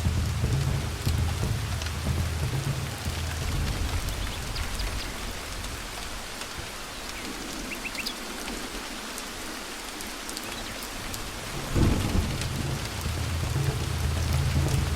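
Thunderstorm: steady rain with rolling thunder. The rumble dies down in the middle, then a sudden thunderclap comes about twelve seconds in and the rumbling builds again.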